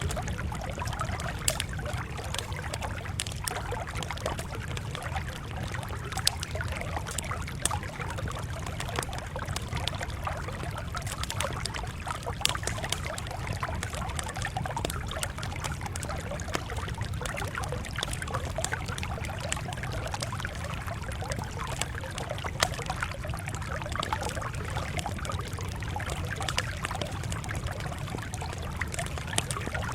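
Wood fire crackling, with frequent small sharp pops scattered through a steady low rumble.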